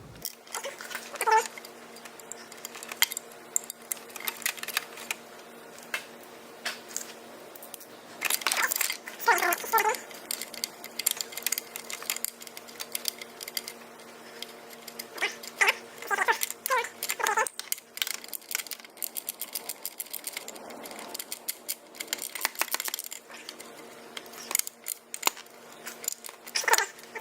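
Clicks and metallic clinks of a wrench tightening the mounting bolt of a motorcycle horn, coming in runs that grow denser near the end. Several short pitched cries that rise and fall in pitch cut in over it, and these are the loudest sounds.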